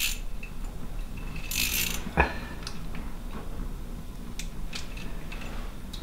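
Spinning reel ratcheting as a hooked fish, a pike, is played on light line.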